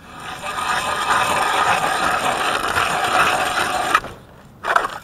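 Hand ice auger's blades cutting into lake ice as it is cranked: a steady grinding scrape that stops suddenly about four seconds in when the hole is through and the auger is lifted out. A second short scrape follows near the end.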